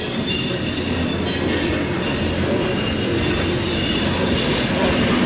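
Open-top hopper cars of a Norfolk Southern freight train rolling past, their wheels squealing in several steady high tones over a steady rumble and clatter of steel wheels on rail.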